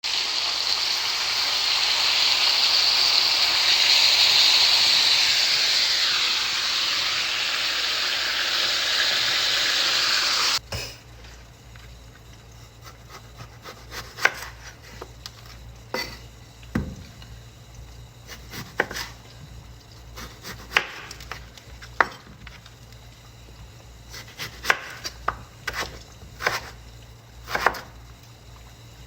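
Kitchen food-preparation sounds: a loud steady hiss for about ten seconds that cuts off abruptly, then scattered light clicks and knocks of utensils and food being handled.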